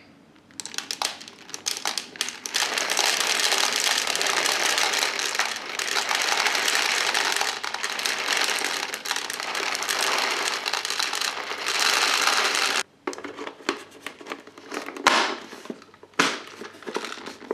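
Airsoft BBs pouring from a plastic zip-lock bag into an A&K M249 box magazine: a continuous rattling hiss of many small pellets that stops suddenly about 13 seconds in. Then the bag crinkles and a few loose BBs click in as it is shaken out.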